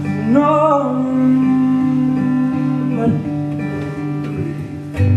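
Live song with guitar playing sustained chords, and the singer's single bending sung 'no' shortly after the start.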